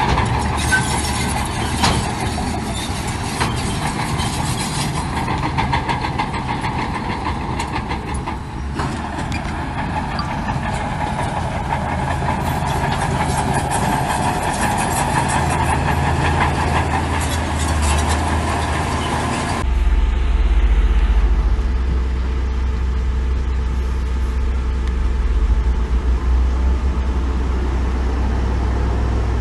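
Heavy diesel earthmoving machinery running, with scattered knocks over the engine noise. About two-thirds of the way through, the sound changes abruptly to a steadier, deeper engine drone.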